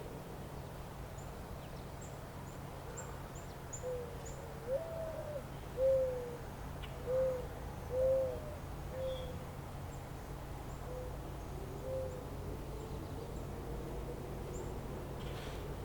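A bird calling a series of about eight short, low hooting notes, roughly one a second, starting about four seconds in, over steady low background noise. Faint high chirps of small birds come and go.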